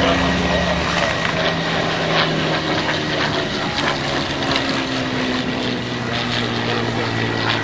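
Supermarine Spitfire's V12 piston engine and propeller running steadily, the engine note sinking slowly in pitch.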